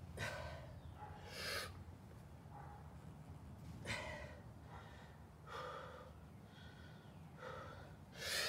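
A man's heavy, straining breaths and gasps, about six in all, a second or two apart, the last one the loudest. The effort is from bending two nails taped together by hand.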